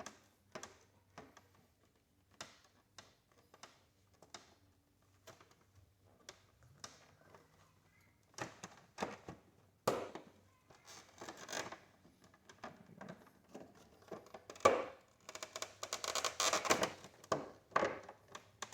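Plastic knocks, clicks and scrapes as a Yamaha R7's windscreen is wiggled and pulled loose from its fairing mounts, scattered at first and turning into a dense run of rattling and scraping in the last few seconds.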